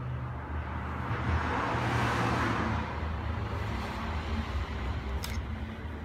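A vehicle passing, its noise swelling about a second in and fading away by three seconds, over a steady low hum. A sharp click comes a little after five seconds.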